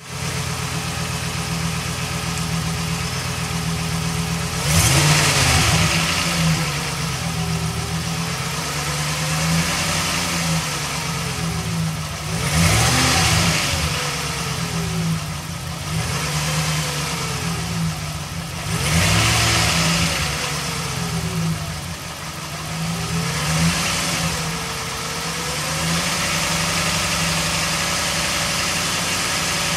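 Car engine idling and revved four times, each rev rising quickly and sinking slowly back to idle. There is a rattle that the owner takes for an exhaust leak, along with poor performance and fuel mileage.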